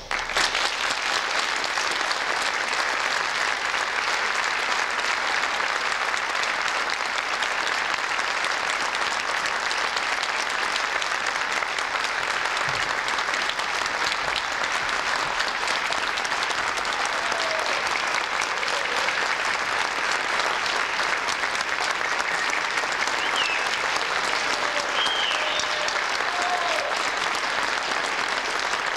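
Audience applause that breaks out suddenly as the choir's final chord fades, then holds dense and steady, with a few whoops and whistles over it in the second half.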